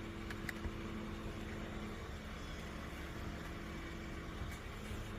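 Steady low hum with a few constant tones, and a couple of faint clicks about half a second in.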